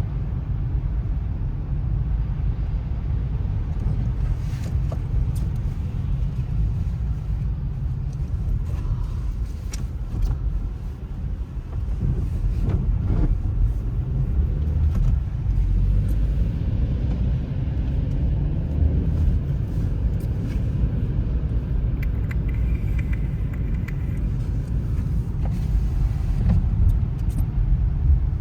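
Steady low rumble of a car, with a few faint clicks and knocks.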